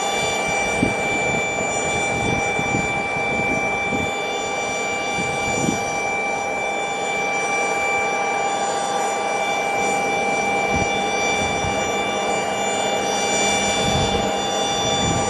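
Rear-mounted twin jet engines of a taxiing business jet, a steady high whine of several tones over an even rushing hiss.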